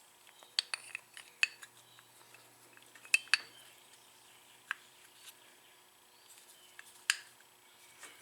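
Scattered sharp metallic clicks and clinks of a new brake pad being slipped into the front brake caliper of a 2010 Kawasaki Vulcan 900, metal backing plate knocking against the caliper.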